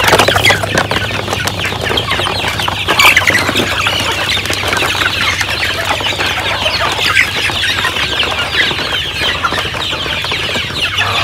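A large flock of chickens clucking continuously, excited and crowding over food, with wings flapping as they jostle.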